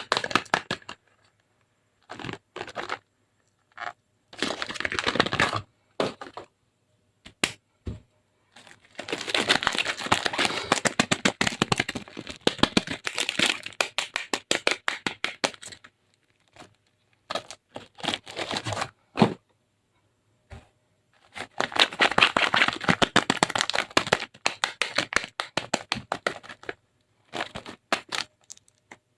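Dry soap cracking as it is pressed and broken: bursts of dense, rapid crackling, the longest lasting several seconds, separated by silent pauses.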